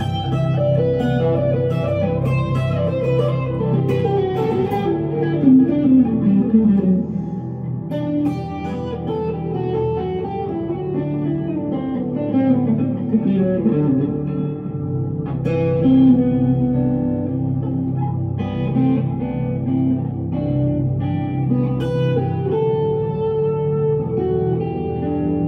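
1965 Fender Stratocaster electric guitar played through an amplifier with delay and reverb, a slow melodic lead line with sustained notes and two long falling runs, one early and one about halfway through.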